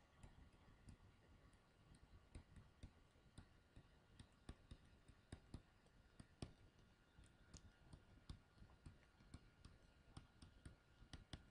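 Faint, irregular clicks and taps of a pen stylus on a tablet screen during handwriting, several a second, over a faint steady electrical tone.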